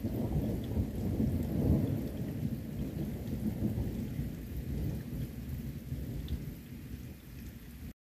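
Thunder rumbling over rain, loudest a couple of seconds in and slowly dying away.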